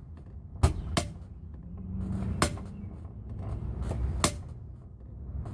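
Mini sledgehammer striking the top of an 8-foot steel grounding rod, driving it into the ground: a handful of sharp metal-on-metal strikes, unevenly spaced.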